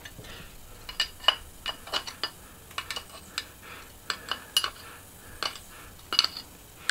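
A steel screwdriver clinking and scraping against a cast-aluminum motor end bell as it picks at the bushing, making an irregular string of short, sharp metallic clicks.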